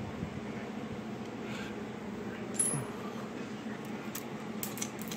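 Small metal clinks of broken fragments from a blown Honda B18C-R engine's bottom end being handled: one sharp ringing clink about two and a half seconds in, then a few light ticks near the end, over a steady background hum.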